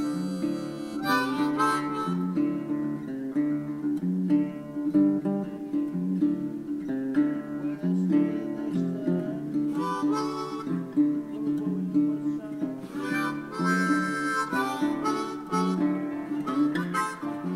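Background music: harmonica over guitar, with a steady rhythm.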